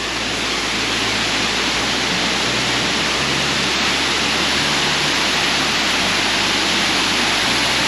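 Waterfall, falling water rushing steadily and loud.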